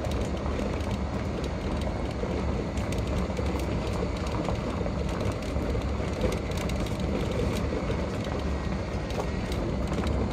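Open golf-cart-style shuttle driving over stone paving: a steady rumble of running gear and tyres, with many small rattles from the cart's body.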